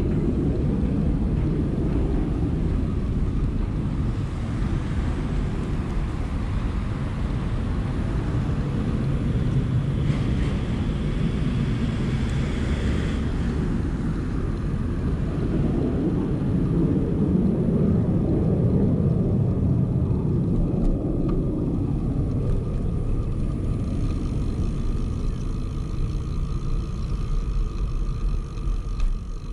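Steady wind rumble on the microphone of a camera carried on a moving bicycle, with a brief higher hiss about ten seconds in.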